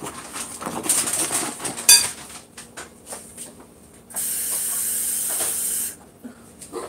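A metal fork scraping and clinking against a glass mixing bowl while stirring a stiff flour dough, with a sharp ringing clink near two seconds in. Later comes a steady hiss about two seconds long that starts and stops abruptly.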